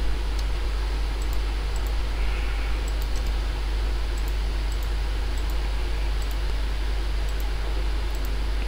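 Steady hiss and low electrical hum from the recording setup, with faint, scattered computer mouse clicks as polyline points are placed.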